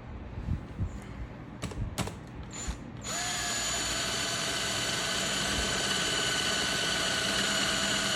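Power drill running at a steady speed with a constant whine, switched on about three seconds in after a few knocks and clicks of handling.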